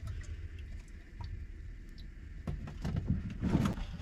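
Clatter of cooking pots and utensils being handled, over a low steady rumble. The light knocks come thicker from about halfway through.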